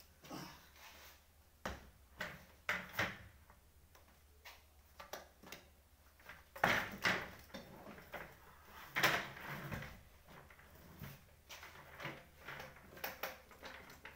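Office chairs being lifted and shifted about: irregular knocks, clatter and scraping of their metal frames and bases, loudest in the middle.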